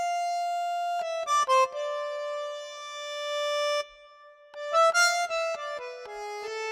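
Music: a single melody line on one sustained-tone instrument, a long held note followed by quick runs of shorter notes.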